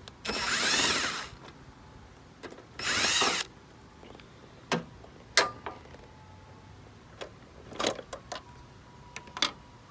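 Power drill run in two short bursts of about a second each, its whine rising and falling, then several sharp clicks and knocks.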